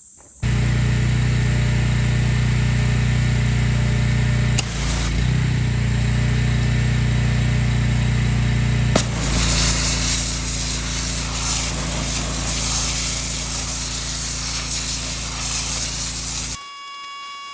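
Northstar 4000 PSI gas pressure washer running, its engine drone under the hiss of the high-pressure water jet blasting into an oak stump root and the dirt around it. The hiss grows stronger about nine seconds in. The sound cuts off suddenly near the end.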